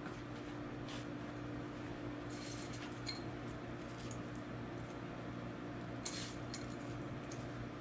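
Faint steady hum with two brief spells of soft rustling and light clicks, as a topping is sprinkled by hand onto a plate of noodles and a small serving bowl is handled.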